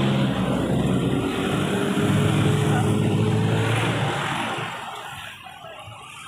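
A motor vehicle passing on the road, its engine hum loud for about four seconds and then fading away.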